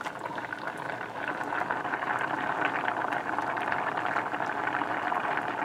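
Rice boiling hard in water in a stainless saucepan on an electric stove: a steady, dense bubbling crackle that grows a little louder over the first couple of seconds. The rice is being hard-boiled, kept firm before straining.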